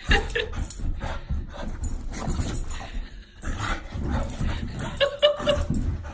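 Dog barking and yipping in short excited bursts while scuffling and pawing at a cushioned dog bed.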